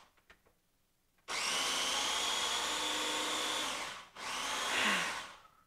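Small food processor pulsed twice, grinding powdered sugar and flour finer for macarons: one run of about two and a half seconds, then a shorter run of about a second that winds down.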